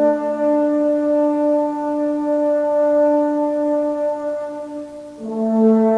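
Slow instrumental background music of long held chords, with the chord changing a little after five seconds in.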